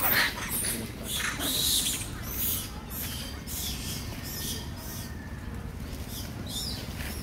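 Macaques making short, high-pitched squeaky calls, one every half second or so, some rising and falling in pitch.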